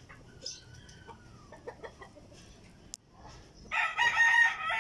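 A rooster crows loudly in the last second or so, one drawn-out call. Before it there is a fainter drawn-out call and a single sharp click about three seconds in.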